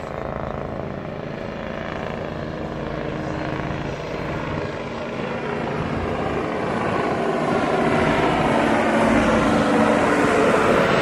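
Helicopter flying overhead, its engine and rotor sound growing steadily louder over the second half as it comes closer.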